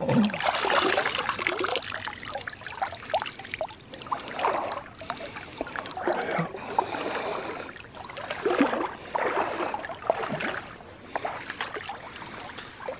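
Shallow lake water splashing and sloshing in irregular surges, starting abruptly, as a hand grabs freshwater crayfish and lifts them out of the water.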